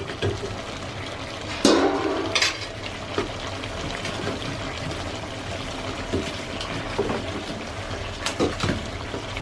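Pork curry sizzling in an iron wok over a wood fire, with a loud clatter about two seconds in and a few lighter knocks. Near the end water goes into the hot pan and hisses up into steam.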